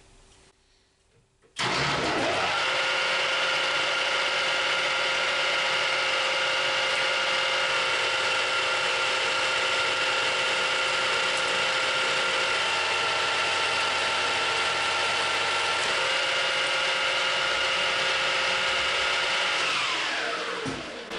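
Metal lathe switched on about a second and a half in, its headstock gears whining at a steady pitch while it takes a turning pass to remove another millimetre from the bar's diameter. Near the end it is switched off and the whine falls as the spindle spins down.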